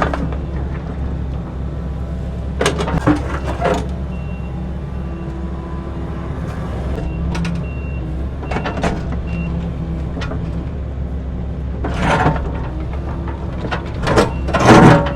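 Excavator engine running steadily while the machine breaks up concrete, with bursts of cracking and clattering as slabs break and are moved. The loudest crash comes near the end.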